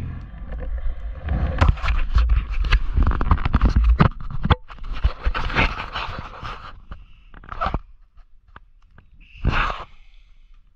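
Irregular scraping and rustling, dense for the first few seconds and then sparse. The engine running just before has stopped.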